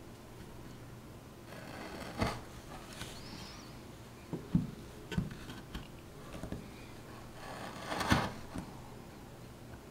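Hand chisel paring wood out of a recess in a softwood board: soft scrapes of the edge through the grain and short light knocks of the steel against the wood, several in quick succession in the middle and a louder scrape and knock near the end.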